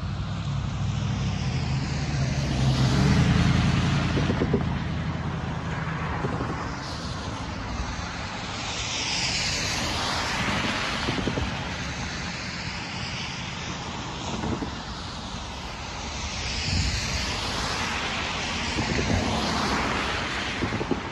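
Road traffic on a wet road: cars passing over the crossing one after another, each a hiss of tyres on wet pavement that swells and fades as it goes by. A deeper vehicle engine rumble is loudest in the first few seconds.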